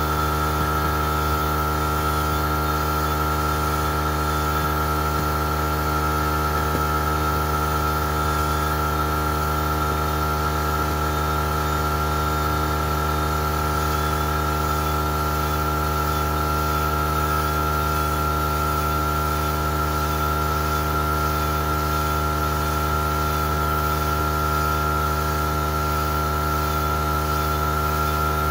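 Electric drill turning a paddle mixer through aircrete slurry, together with the air compressor and pump driving the foam generator: a steady machine drone with a high whine, unchanging throughout.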